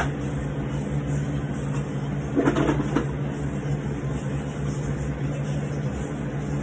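A steady low mechanical hum, with a brief louder rush of noise about two and a half seconds in.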